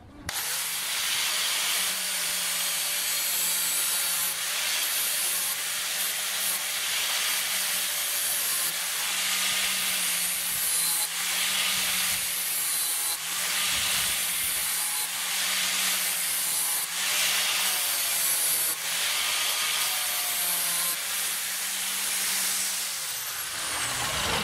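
INGCO angle grinder running with a sanding disc pressed against a wooden hammer handle: a continuous rasping hiss over the steady motor hum, the pitch dipping slightly each time the disc bites. The motor spins down near the end.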